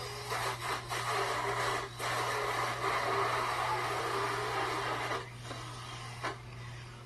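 Rubbing, scraping noise with a few light knocks. It fades after about five seconds, leaving a steady low electrical hum.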